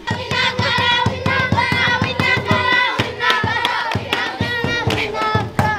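A group of schoolchildren singing together in a call-and-response style song while clapping a steady beat.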